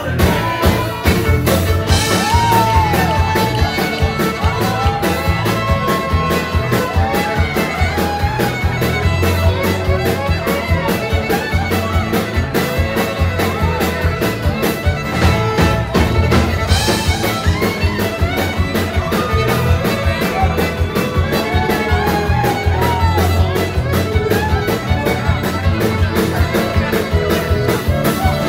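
Live country band playing an instrumental break, with a fiddle carrying the lead in sliding, curving melody lines over electric guitars, bass and drums keeping a steady beat.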